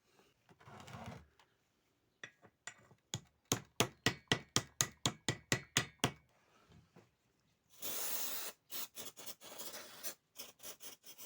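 Hand-tool work on small-engine metal parts: a run of about a dozen sharp, evenly spaced taps or clicks, about four a second, then a few rasping strokes and a quicker string of clicks near the end.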